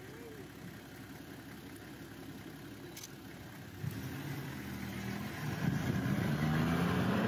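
Safari vehicle's engine running at idle, then revving louder about four seconds in as it pulls away.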